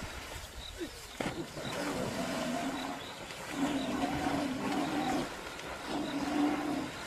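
An animal growling in three or four drawn-out calls, each about a second long, after a single sharp knock about a second in.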